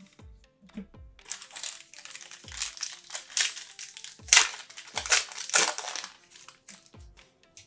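Crinkling and tearing of a trading-card pack's foil wrapper as it is ripped open, in a run of crackly bursts, loudest about four and five and a half seconds in. Background music with a regular low beat plays under it.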